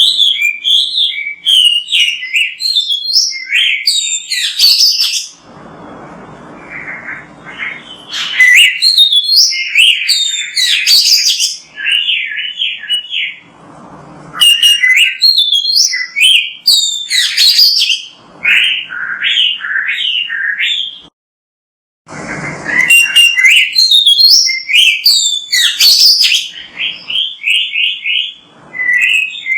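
Oriental magpie-robin (kacer) singing loud, rapidly varied phrases of whistles and chirps in bursts. The song pauses for a few seconds about six seconds in and breaks off for about a second two-thirds of the way through.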